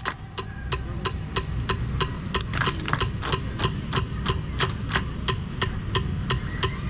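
Sharp, even percussive strikes, about four a second, keeping the beat of a Samoan sasa, a seated group dance: the performers clap and slap in unison.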